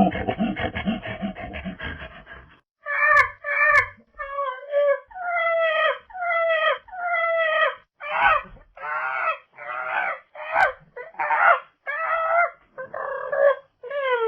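Proboscis monkey vocalising: a rapid pulsed, panting-like grunting fades out over the first couple of seconds. It is followed by a run of about fifteen short nasal honking calls, each bending in pitch, given in quick succession.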